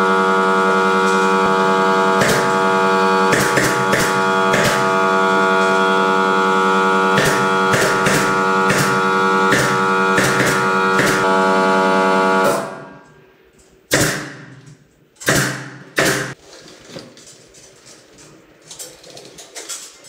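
Pneumatic brad nailer firing a dozen or so sharp, irregularly spaced shots into the ceiling trim over a loud steady droning tone, which fades out about twelve seconds in. Three louder single shots follow, each a second or so apart.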